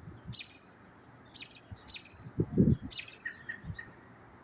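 Short, sharp high chirps from an unseen animal, repeating about once a second. A louder low thud comes about halfway through.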